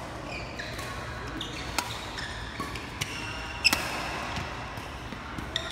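Badminton doubles rally: rackets striking the shuttlecock with sharp cracks, several hits, the loudest a little past halfway. Court shoes squeak briefly on the court mat between the hits.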